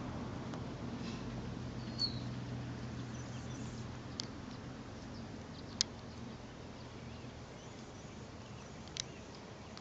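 Four short, sharp clicks spread over several seconds above a low, steady background hum that slowly fades.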